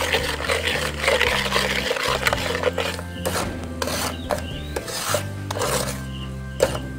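Metal spatula scraping and rubbing against the bottom of a nonstick pan while stirring sugar syrup, the strokes becoming more separate in the second half. Background music plays underneath.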